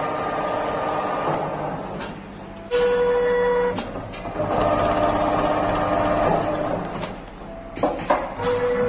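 Richpeace automatic tufting sewing machine stitching tacks into a round cushion: runs of rapid stitching, broken by a steady whine about three seconds in and a few sharp clicks near the end.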